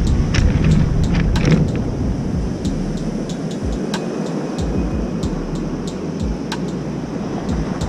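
Surf breaking and washing on a pebble beach, with wind buffeting the microphone in a low uneven rumble, louder for the first two seconds. Scattered sharp clicks of pebbles shifting underfoot.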